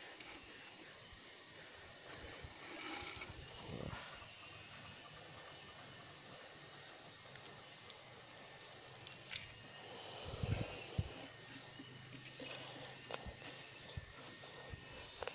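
A steady high-pitched insect drone, joined about halfway through by a second insect pulsing about twice a second. Now and then comes the rustle and scrape of dry nest material being pulled out of a bamboo nest box by hand.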